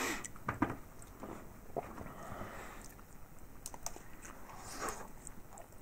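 Scattered light clicks and taps of broken chocolate figurine pieces being handled and set down on a tabletop.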